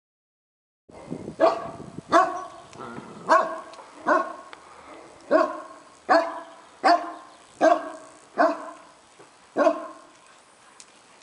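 A large dog barking about ten times in a slow, regular series, roughly one sharp bark a second, starting about a second in. These are angry guard barks at noises it has heard.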